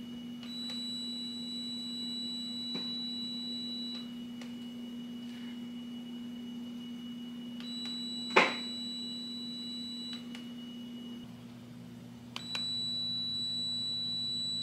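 Electric pet hair clipper humming while it gives a long, high-pitched beep three times, cutting in and out: a fault warning from a clipper that is malfunctioning. A brief sharp sound cuts in about eight seconds in, and the low hum changes pitch a few seconds before the end.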